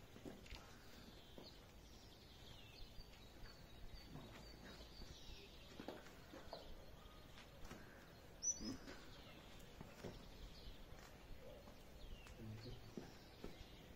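Faint outdoor quiet with birds chirping: many short high chirps repeating throughout, a few soft knocks, and one sharp click about eight and a half seconds in.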